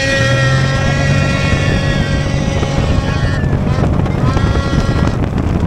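Snowmobile skimming across open water at high throttle, its engine giving a steady high-pitched whine. The whine drops away about three and a half seconds in, then climbs back briefly before fading, over a constant rush of spray and air noise.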